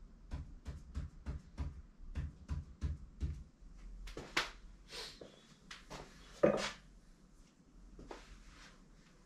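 Ink pen tapping out short tally strokes on paper, about four a second, stopping about three and a half seconds in. Rustling and shuffling of paper follow, with one louder knock about six and a half seconds in.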